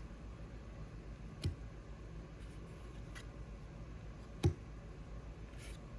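Trading cards being handled: a few light clicks and taps, the sharpest about four and a half seconds in, over quiet room tone.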